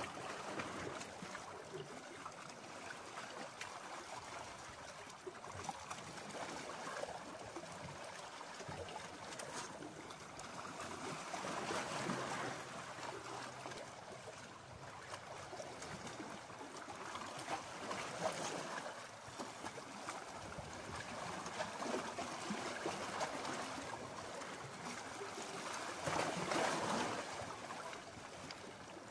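Small sea waves lapping and washing against shoreline rocks, swelling louder now and then and loudest a little before the end.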